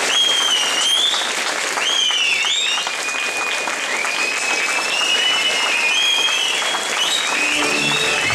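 Audience applauding after a folk dance, with high, gliding whistles over the clapping. Instrumental music starts up near the end.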